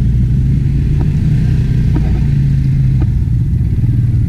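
ATV engine running steadily at an even speed.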